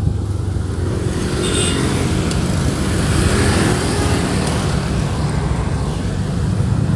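Motorcycle on the move in city traffic: steady wind rush on the rider's camera over engine and road noise, with other vehicles around.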